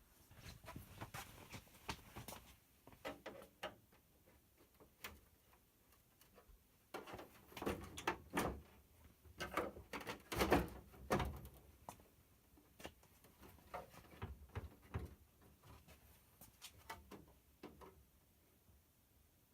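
Plastic back cover of a CRT television being pried at and handled: scattered clicks, knocks and scrapes, thickest and loudest in the middle.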